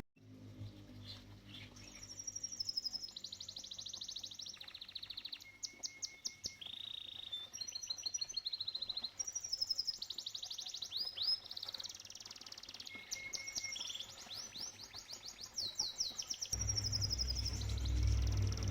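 Canary singing: long runs of fast, high trills and rolled phrases, with rapid rising sweeps and short held notes. Near the end a low steady rumble comes in beneath the song.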